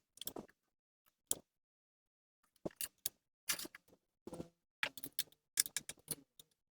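Scattered small clicks and taps of ceiling-fan blade parts, screws and a nut driver being handled while the blades are fastened to their bracket, with a pause of about a second near the start and busier clicking in the second half.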